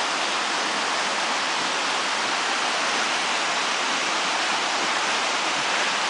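Steady rushing of a fast-flowing woodland stream.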